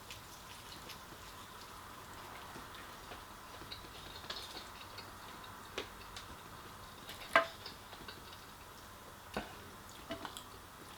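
Eating sounds: scattered soft clicks and crunches of chewing and handling fried chicken, a few seconds apart, the loudest about seven seconds in, over a faint steady hiss.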